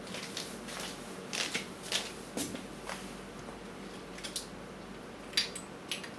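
Handling of a CO2 revolver while a CO2 cartridge is fitted into its grip: rustling and a string of light metal clicks and clinks, with the sharpest click about five seconds in.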